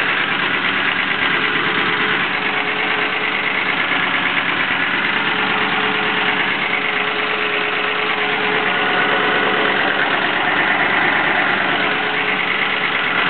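Engine idling steadily, its exhaust leak already repaired: the remaining engine noise still under investigation.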